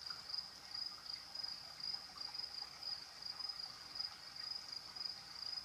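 Crickets chirping: a steady high trill pulsing evenly a few times a second.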